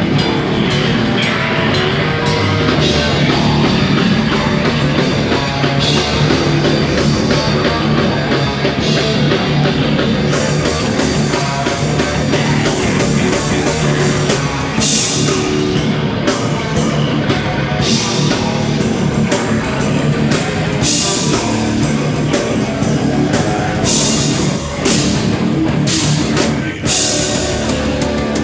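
A hardcore band playing live and loud: distorted electric guitars, bass and a drum kit, with repeated cymbal crashes in the second half.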